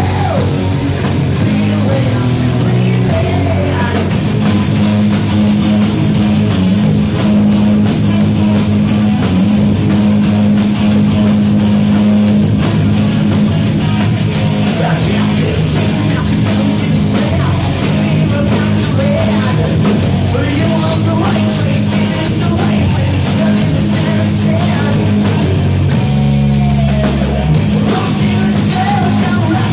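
Loud rock music played live by a band: distorted guitars over a steady low bass line, with singing or shouted vocals.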